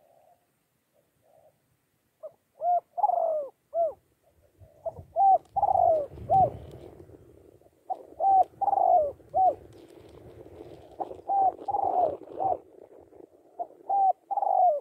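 Spotted dove cooing: a four-note phrase repeated about every three seconds, the third note longer and falling, beginning about two seconds in.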